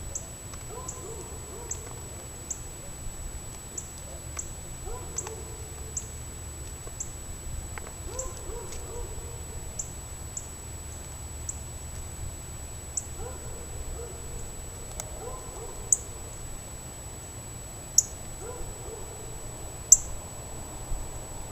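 An owl hooting repeatedly in the background over a steady high whine, with small ticks every second or so and three sharp, louder clicks near the end.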